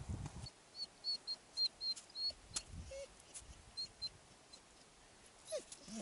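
Dog whining softly: a string of short, high squeaks in the first half, then a couple of lower whimpers, one falling in pitch near the end.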